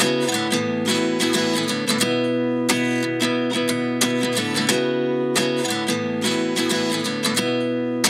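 Background music: an acoustic guitar strumming chords at a steady pace, with no singing.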